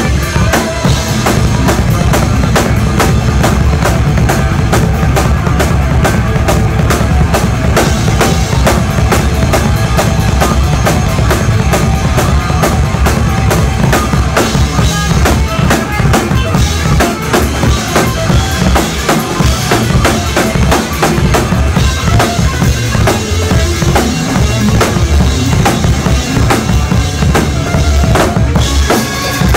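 A live band playing loud, drum-heavy music, with a fast, driving beat on the drum kit's bass drum and snare.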